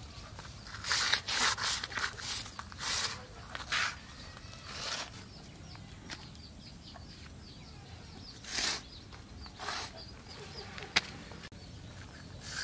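Short rasping scrapes of a live fish being rubbed hard against packed earth, a cluster of quick strokes in the first few seconds and a few more spaced out later, with one sharp click near the end. The fish are being scraped on the ground to kill them, and they are still not dead.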